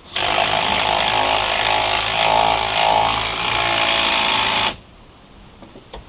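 Handheld power tool running steadily for about four and a half seconds, then cutting off suddenly. It is driving the fastener on the snowblower's new steel wheel hub.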